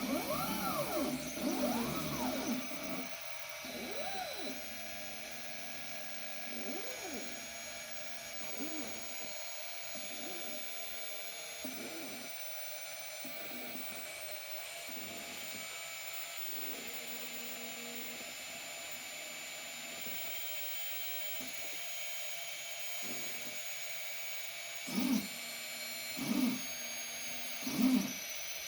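Stepper motors of a Niryo One robotic arm whining as its joints move, each move a whine that rises and then falls in pitch. Several longer moves come in the first few seconds, smaller ones follow every second or two, and four short, louder moves come in quick succession near the end.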